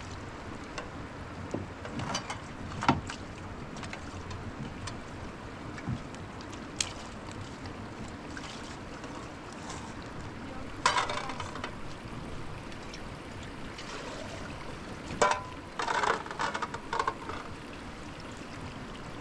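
Metal plates and trays clinking and clattering as they are washed by hand, over a steady outdoor wind noise. The clinks are scattered, with the loudest clatters about eleven seconds in and again from about fifteen to seventeen seconds in, some of them ringing briefly.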